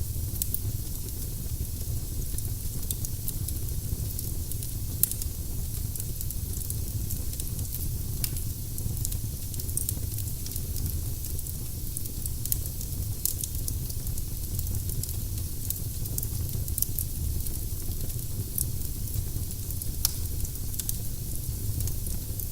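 Firewood burning in a fireplace: a steady low rumble and hiss with scattered small crackles and pops, and a few louder snaps.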